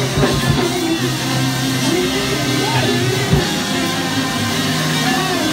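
Live church band playing long held low notes with guitar, with a few drum hits.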